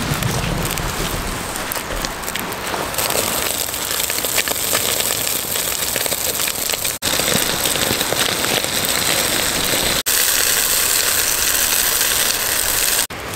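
Steady rain hissing and pattering. Three sudden cuts split it into stretches of slightly different loudness, and the stretch near the end is the loudest and brightest.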